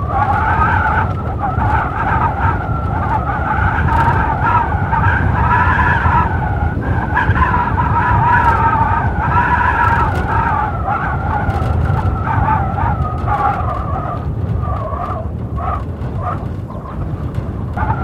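Blizzard wind howling: a wavering, whistling howl over a steady low rumble of gusts, easing briefly near the end.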